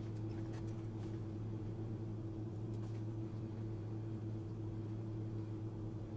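A steady low hum, with a few faint light clicks as the replacement laptop screen panel is handled and positioned in the lid.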